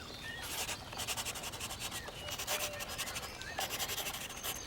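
A pen scratching and rubbing on paper in a quick run of short, repeated drawing strokes.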